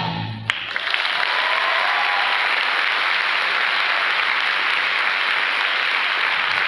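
The last sung note of a choir number fades out, there is a sharp click about half a second in, and then a theatre audience applauds steadily.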